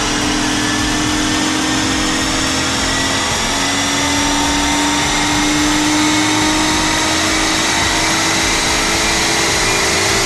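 Acura TL's V6 engine, fitted with a Takeda aftermarket air intake, running under load on a chassis dynamometer, its front tyres spinning the rollers. The engine note rises slowly and steadily through the pull over a constant rush of tyre-on-roller noise.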